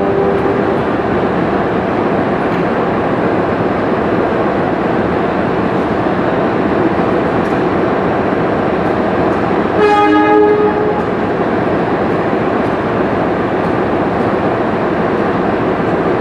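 CC 201 diesel-electric locomotive approaching slowly with a steady rumble, sounding one horn blast about a second long about two-thirds of the way through.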